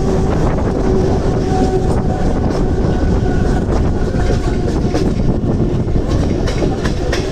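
Mumbai suburban EMU local train running along the track, heard from its open doorway: a steady loud rumble of wheels on rail, with the clickety-clack of rail joints coming through as scattered sharp clicks.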